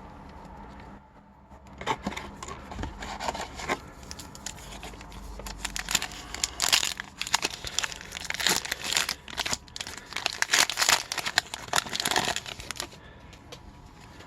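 A foil hockey card pack wrapper being torn open and handled, in a run of crackly rustles that starts about two seconds in, is busiest in the middle and later part, and dies away near the end.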